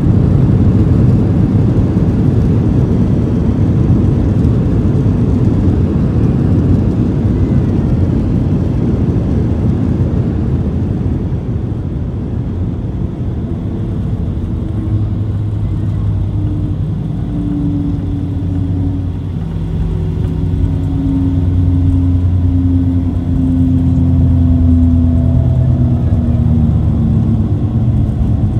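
Cabin noise of a Boeing 737-800 rolling out on the runway after landing. There is a loud, low rumble from the wheels and airflow, heaviest in the first half, and steady hums from its CFM56 engines come through from about halfway.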